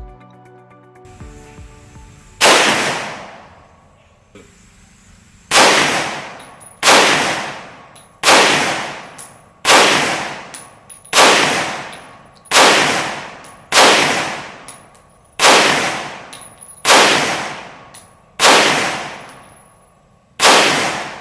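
MSD Eagle 7.62×25mm pistol firing a fully loaded magazine in steady semi-automatic succession: one shot, a pause of about three seconds, then eleven more about one and a half seconds apart. Each loud shot is followed by a trailing echo.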